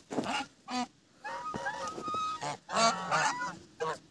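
A small flock of domestic geese honking: a run of short, overlapping calls, busiest and loudest about three seconds in.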